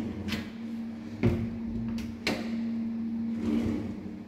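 Modular kitchen drawers on metal side runners being pulled open and pushed shut by hand: sliding, then sharp knocks as they hit their stops, the loudest about a second in and two more around two seconds in, over a steady low hum.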